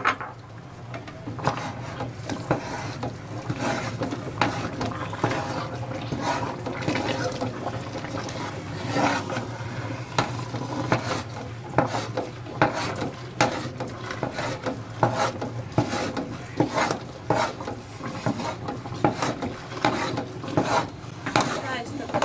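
Long metal spoon scraping and knocking against a large aluminium pot as a thick chana dal paste is stirred and fried in ghee to brown it. The strokes are irregular, about one or two a second, over a steady low hum.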